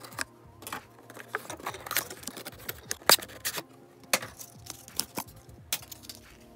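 Plastic toy packaging being handled and opened by hand: a run of irregular clicks, snaps and crackles.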